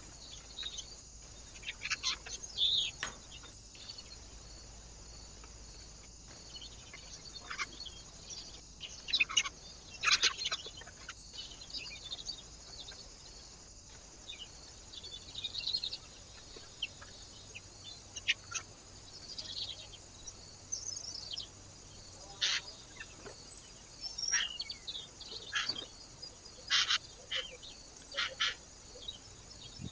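Small birds at a feeder chirping and calling, many short, sharp calls scattered throughout, some in quick runs, over a steady background hiss.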